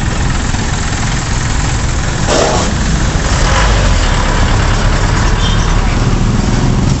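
Street traffic close by: a jeepney's engine running as it passes, with motorcycle tricycles going by and a steady low engine rumble throughout. A short burst of hissing noise comes about two and a half seconds in.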